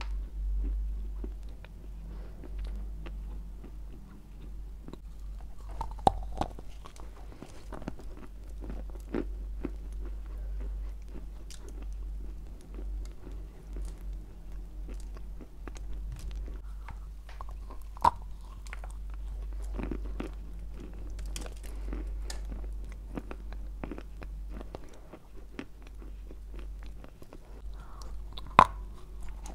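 Close-miked biting and crunchy chewing of a dry lump of white Turkestan clay. Three sharp, loud bite snaps come about six seconds in, about eighteen seconds in and just before the end.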